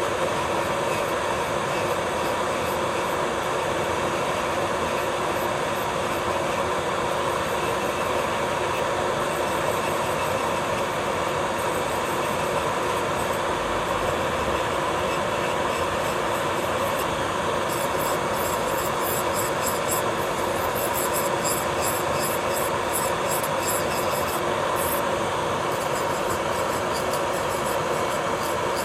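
Electric nail drill (e-file) running steadily as its bit grinds gel off a fingernail, a constant whine over a gritty hiss. For several seconds past the middle a fine, rapid high crackle joins the grinding.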